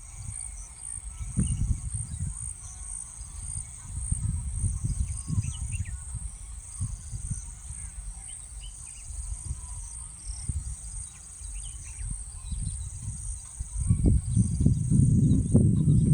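Outdoor field ambience: insects keep up a steady high-pitched buzz, small birds chirp faintly now and then, and wind rumbles on the microphone in gusts, growing louder near the end.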